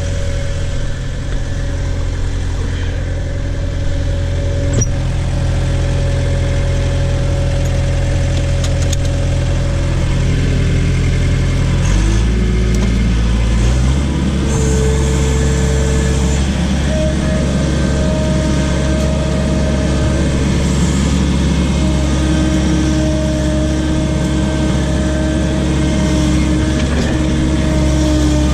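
Case/Davis D100 backhoe engine running steadily. Its note shifts twice about halfway through as the engine speed changes, and higher whining tones join it from then on.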